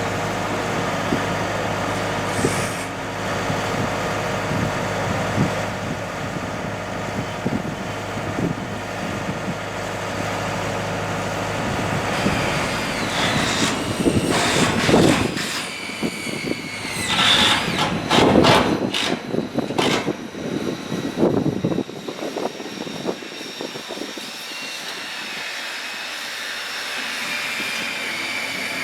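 A vehicle engine runs with a steady low hum. About fifteen seconds in, a run of irregular knocks and clatter takes over, and after about twenty-two seconds the low rumble drops away, leaving thinner higher tones.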